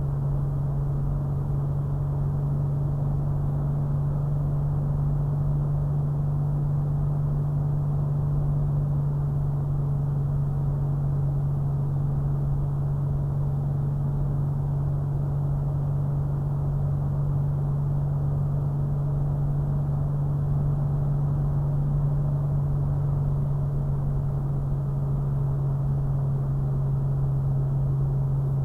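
Steady in-cabin drone of a Toyota FJ Cruiser driving at about 45 mph: engine and tyre noise with a strong, even low hum that does not change.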